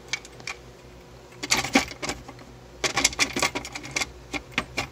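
A plastic dash trim panel being handled and pushed into place under a truck's dashboard, with loose screws and clips rattling in it. It comes as clusters of sharp clicks and clatters about a second and a half in, around three seconds in, and again near the end.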